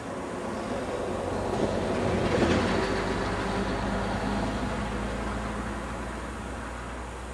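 Train running on the line, its rumble swelling to a peak about two and a half seconds in and then slowly fading, with a steady low hum underneath.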